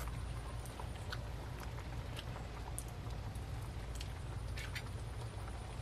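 A person eating from a small ceramic bowl with chopsticks: chewing, with scattered light clicks of chopsticks against the bowl, over a steady low hum.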